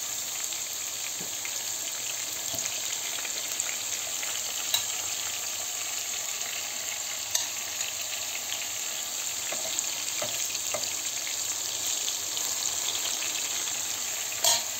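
Vegetables frying in hot oil, a steady sizzle, with a few light clicks of a metal utensil against the dishes and one sharper click near the end.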